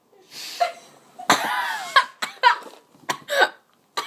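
A girl coughing after swallowing soda pop during a failed attempt to force a burp. There is a breathy hiss about half a second in, one long rough cough about a second in, then several short bursts of voice.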